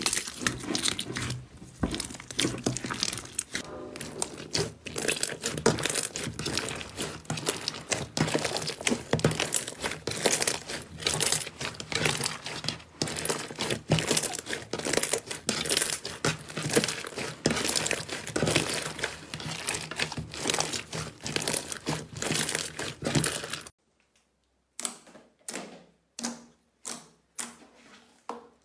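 Blue slime with white fluffy bits being squeezed and kneaded by hand, giving a dense, continuous crackling and crinkling. Near the end it switches to a glossy slime being pressed, with separate soft pops about twice a second over a quiet background.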